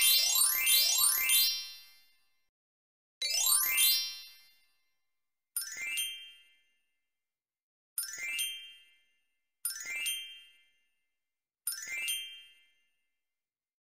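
Electronic chime sound effects: several quick rising chime glissandos overlapping at the start and one more about three seconds in, then four short dings about two seconds apart, each sounding as another numeral is written on the worksheet.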